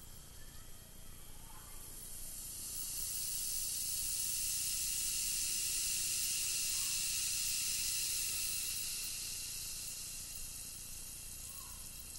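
Baking soda fizzing in a glass of 25% vinegar: a high hiss of bursting carbon dioxide bubbles that swells about two seconds in, holds, then dies away over the last few seconds as the reaction runs down.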